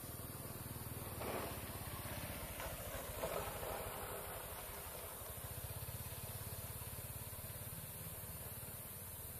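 A low, steady engine hum like a motor idling, under a steady high hiss. Two brief louder sounds come about one and three seconds in.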